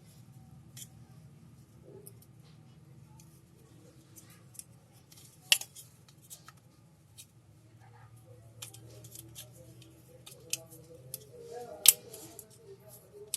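Scattered sharp clicks and taps from small parts being handled on a repair bench, with louder snaps about five and a half seconds in, about twelve seconds in and at the very end, over a faint low hum.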